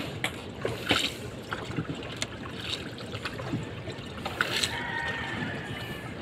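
Water trickling and sloshing around the hull of a small paddled boat, with the soft splash of a paddle stroke now and then.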